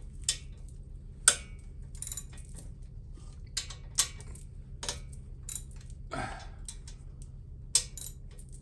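Hand tools working the rocker box bolts on a Harley-Davidson Sportster Evolution's rear cylinder, giving sharp metal clicks and knocks at irregular intervals, about a dozen in all. A steady low hum runs underneath.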